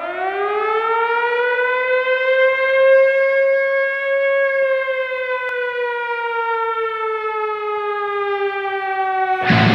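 Air-raid siren winding up in pitch over the first two seconds, holding a wail, then slowly sinking in pitch. Loud music cuts in just before the end.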